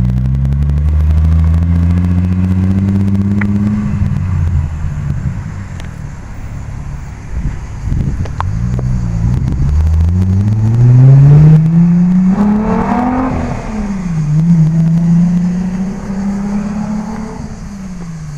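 Volkswagen Golf GTI Mk3's 2.8-litre VR6 engine and exhaust accelerating hard in a fly-by, the pitch climbing steeply, then dropping sharply, twice. The second climb is the loudest, before the note settles and fades near the end.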